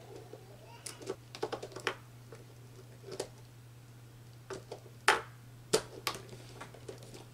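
Irregular plastic clicks and rattles of an auxiliary contact block being fitted onto the front of a contactor and snapped into place, with a quick cluster of small clicks early and a few sharper single clicks later.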